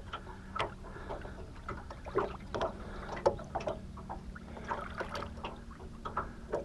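Water splashing and sloshing in short, irregular strokes as a large Murray cod is held in the water to revive it before release, over a steady low hum.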